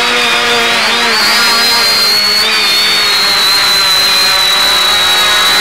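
X550AIOP quadcopter's electric motors and propellers whining under a hiss, heard over the FPV downlink. The pitch shifts in the first second as the throttle comes down for landing, then holds steady at idle on the ground.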